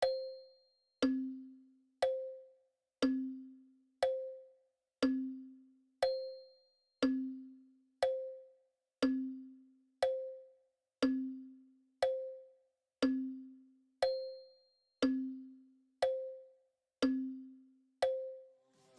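Slow stopwatch tick-tock sound effect: one stroke a second, alternating a higher tick and a lower tock, each a short pitched knock that fades before the next.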